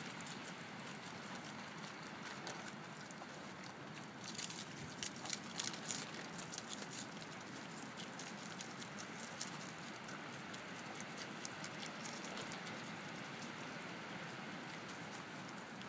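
Groundhog chewing and crunching romaine lettuce: a run of small, quick crunches and clicks, denser and sharper around five seconds in, over a steady background hiss.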